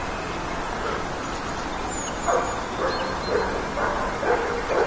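Hunting dogs barking repeatedly, a string of short barks starting about two seconds in: a pack in pursuit of a wild boar.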